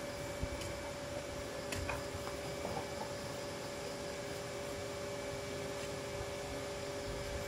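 Steady mechanical hum made of two steady tones over an even hiss, with a few faint clicks in the first two seconds.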